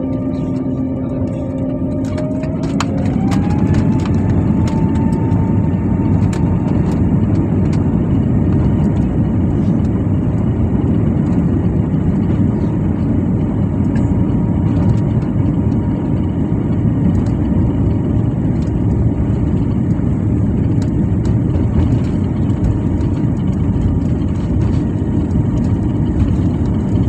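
Airliner's jet engines spooling up to take-off power, heard from inside the cabin: rising whining tones settle into a steady high tone about three seconds in, over a loud steady rumble of the take-off roll, with scattered clicks and rattles.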